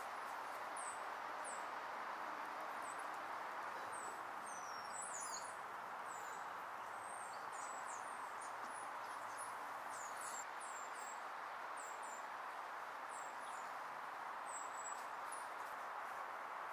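Many short, very high-pitched chirps, scattered irregularly, over a steady background hiss.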